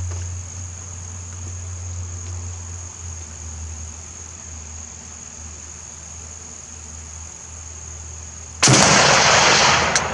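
A single shot from an M1D Garand sniper rifle in .30-06, fired near the end, loud and with a long trailing echo, followed by a short sharp click.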